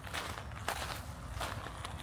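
Footsteps crunching on a fine gravel path, about three steps at an even walking pace, over a low steady rumble.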